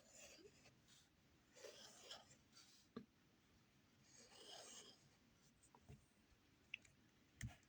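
Faint scratching of handwriting in short strokes, with a single soft click about three seconds in.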